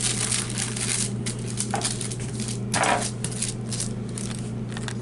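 Hands pressing and patting raw ground beef and pork into a flat patty on wax paper: irregular crinkling of the paper and soft squishing of the meat, with one louder crinkle about three seconds in. A steady low hum runs underneath.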